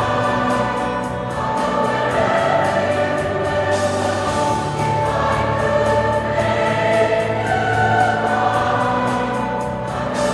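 Large mixed choir of men's and women's voices singing a song in harmony, with held chords that shift every second or two.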